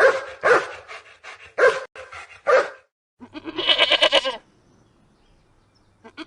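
A dog barking in a quick series of short barks, then a goat bleating: one wavering bleat about three seconds in and another near the end.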